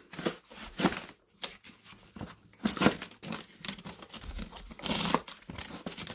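Printed paper wrapper being cut with a small knife and torn away from the top of a cardboard firework cake: a string of irregular rips and crinkles.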